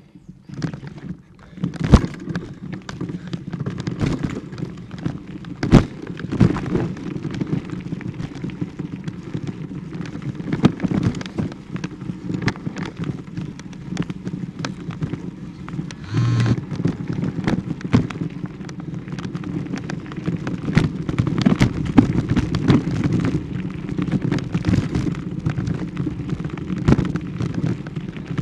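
Rumbling, crackling handling noise from a handheld camera carried while walking, with frequent irregular knocks and a short tone about sixteen seconds in.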